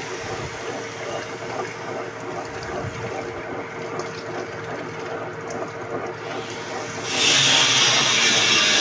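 Manual metal lathe running steadily, an even mechanical noise with a constant hum. About seven seconds in, louder music comes in over it.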